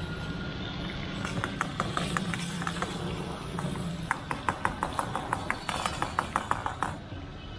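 Long-handled metal ladle clinking and scraping against a metal karahi wok over a charcoal fire, in quick repeated strokes that reach about five a second as the food is stirred and turned.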